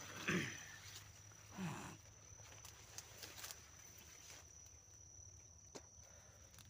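Dry sugarcane leaves and stalks rustling and crackling as someone pushes through the cane and treads on dry leaf litter. A steady high-pitched insect drone runs behind it, and two short low hums come within the first two seconds.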